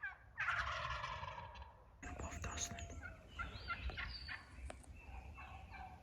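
Wild turkey gobbling, one rolling gobble about half a second in that lasts roughly a second and a half, followed by softer scattered bird calls.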